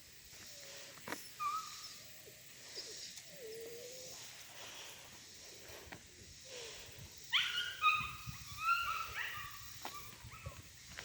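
Bernedoodle puppy whimpering and whining in short high-pitched cries, a cluster of louder ones from about seven seconds in.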